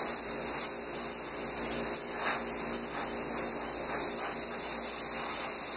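Airbrush spraying paint, a steady hiss of air with a few brief swells, as the back of a largemouth bass mount's fin is shaded; a low steady hum runs underneath.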